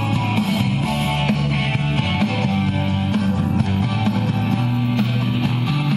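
Rock and roll with strummed guitar, a 45 record playing through the battery-powered RCA 45 record player.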